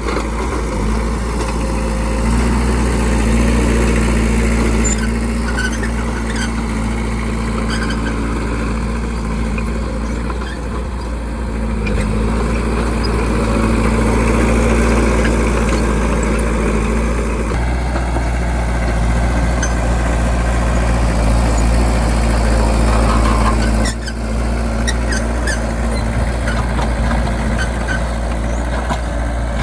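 Bulldozer's diesel engine running steadily at low revs, with light scattered ticks and squeaks over it. The sound shifts suddenly twice.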